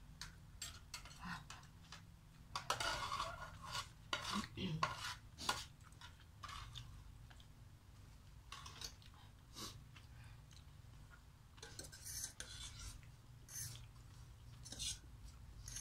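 Metal forks and spoons clinking and scraping against a stainless steel pot and a metal tray of noodles, in scattered short clicks that are busiest a few seconds in and again near the end.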